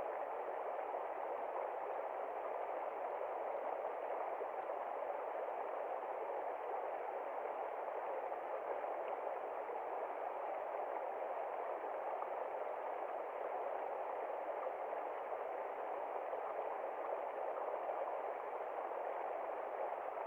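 Shallow creek running over rocks and around ice: a steady, even rush and burble of flowing water.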